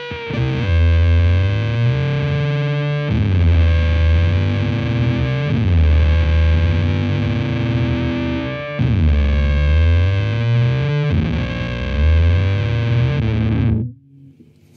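Electric guitar through a Devi Ever Big Distortion Sound Machine fuzz pedal into a Laney VC30 valve combo: heavy fuzz chords with strong low end, let ring and restruck every two to three seconds. The playing cuts off abruptly about a second before the end.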